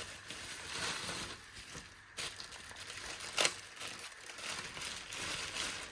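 Handling noise: rustling and crinkling as a rifle scope and its packaging are moved about, with one sharp click about three and a half seconds in.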